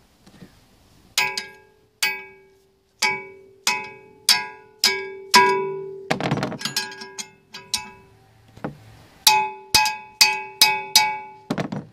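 Metal tool striking the steel of a wood chipper's blade mounting, ringing clinks: about seven strikes roughly every half second, a short rattle near the middle, then six more quicker strikes near the end, as the blade's bolts and nuts are tightened.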